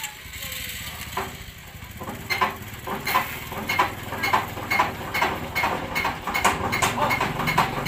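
Diesel engine being hand-cranked, turning over with a rhythmic beat that starts about two seconds in and speeds up from about two to three beats a second as the crank gains speed.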